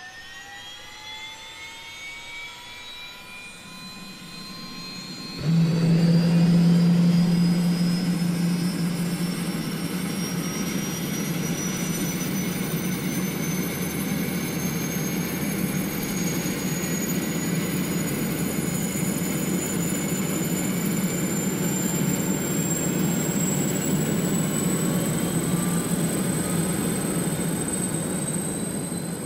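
An engine-like whine spooling up, its pitch climbing slowly and steadily, joined about five seconds in by a sudden loud roar with a deep steady hum underneath. It keeps running loudly and fades out at the very end.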